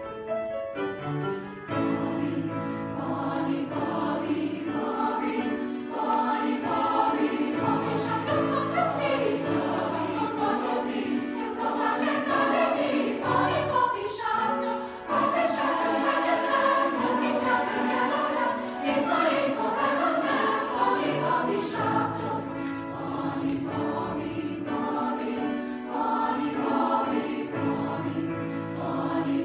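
Large mixed choir of middle- and high-school voices singing in harmony, with long held notes.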